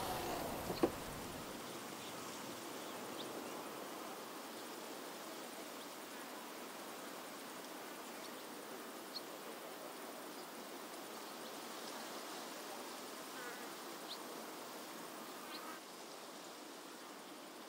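Faint outdoor ambience with insects buzzing steadily, and one sharp click about a second in.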